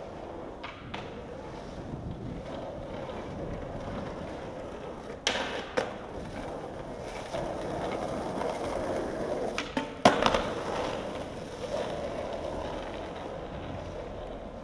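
Skateboard wheels rolling over street asphalt, with sharp clacks of the board: two just past five seconds in, and the loudest about ten seconds in.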